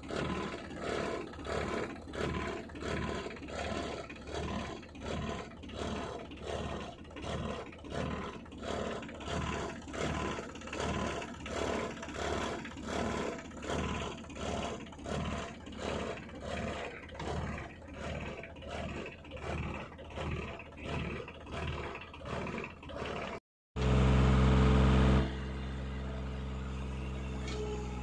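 Backhoe engine running with a rhythmic pulsing about one and a half times a second. Near the end the sound cuts out briefly, then a steady, unpulsed engine sound takes over, louder for a moment and then evener.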